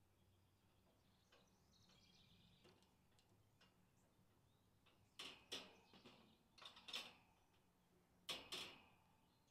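Metal clicks and rattles from a wire pet crate being handled at its side by hand. The clicks come in about three close pairs in the last four seconds.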